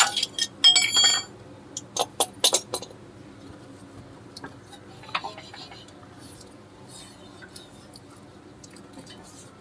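Metal hand tools and steel car parts clinking and knocking together. There is a burst of ringing metallic clinks in the first second and a few more sharp clinks about two seconds in. After that come one knock and occasional light ticks.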